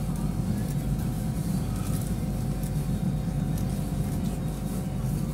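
Steady low rumble of a high-speed EMU train running at speed, heard from inside the passenger car, with a faint steady hum above it.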